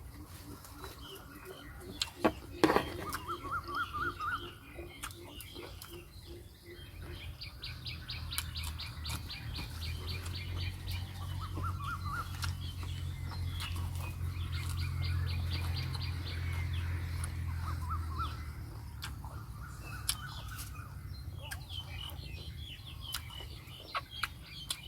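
Birds chirping and insects trilling. A low hum swells and fades over about ten seconds in the middle, and a few sharp clicks and taps come about two to four seconds in.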